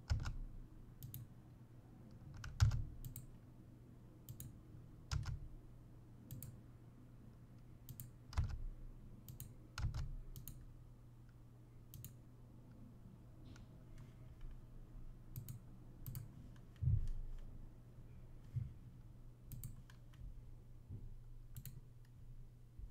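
Irregular clicks of a computer mouse and keyboard, a few louder with a low thump, over a steady low hum.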